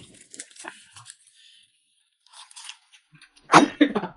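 Soft clicks and mouth sounds of eating noodles at a table. About three and a half seconds in, a man laughs loudly in three quick bursts.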